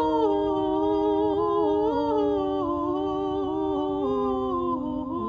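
Several singers in harmony hold the long melismatic 'Glo-o-o-ria' run of a Christmas carol's refrain on one vowel, the notes stepping down in pitch.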